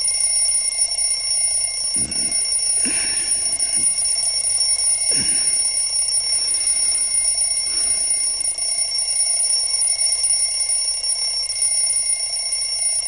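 A steady high-pitched whine of several constant tones over a hiss, unchanging throughout. A few brief soft knocks or rustles come about two, three and five seconds in.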